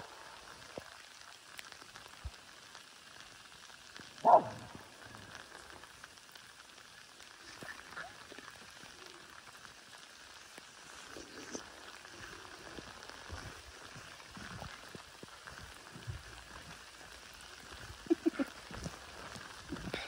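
Light rain falling steadily on a wet road and its surroundings. A single short, loud sound cuts through about four seconds in, and a few brief sounds come close together near the end.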